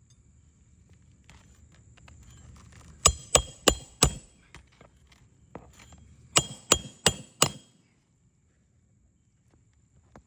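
Hammer driving roofing nails through an asphalt shingle: four quick ringing strikes, a pause of about two seconds, then four more.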